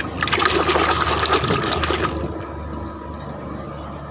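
A hand swishing and splashing through a bucket of soapy water for about two seconds.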